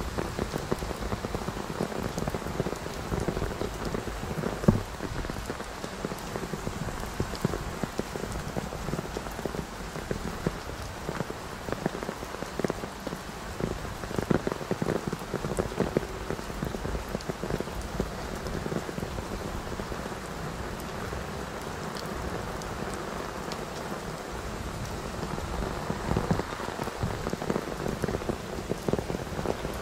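Steady rain falling, a dense patter of many drops striking nearby surfaces, with one sharper tap about five seconds in.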